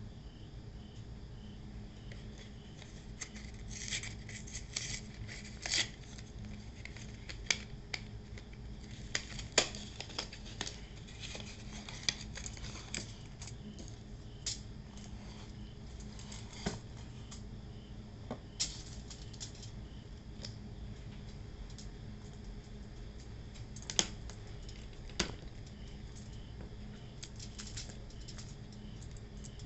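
Hands handling a cardboard box of sardines and the metal tin slid out of it: scattered clicks, taps and rustles of cardboard and tin, heaviest in the first half, over a faint steady low hum.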